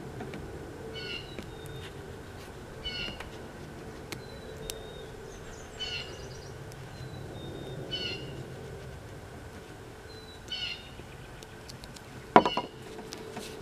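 An animal's short high call, repeated every two or three seconds, with thin high whistles between the calls. About twelve seconds in, a single sharp knock.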